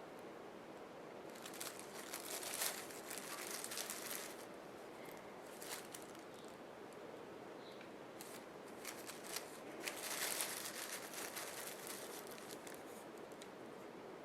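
Faint crinkling and rustling handling noise in two stretches of a few seconds each, with a few light clicks.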